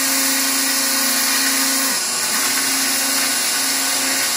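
Phlatprinter CNC router's spindle running steadily as its bit cuts slots in foam board, a constant whine that dips briefly in pitch about two seconds in.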